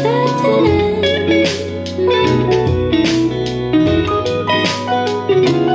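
A guitar-led song playing back through a pair of Dynaudio Evoke 20 bookshelf speakers driven by a Fosi Audio ZA3 amplifier, as a sound test.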